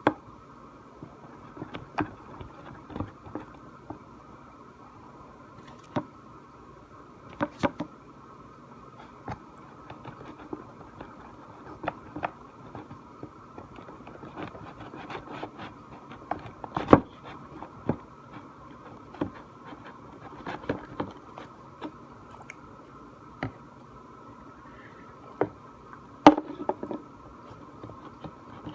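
A stick stirring thick slime in a container: irregular scrapes and short knocks of the stick against the sides, the loudest twice, around the middle and near the end.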